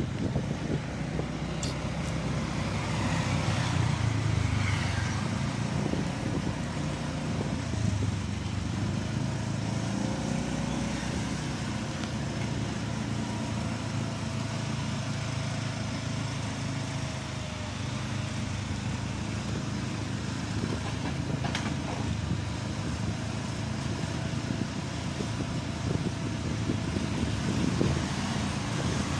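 Honda motor scooter riding along a street: a steady run of engine and road noise, with a faint whine that drifts up and down in pitch as the speed changes.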